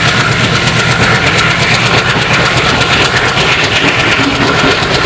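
Indian Railways passenger coaches running past at speed close by, their wheels clattering rhythmically over the rail joints under a steady rushing noise.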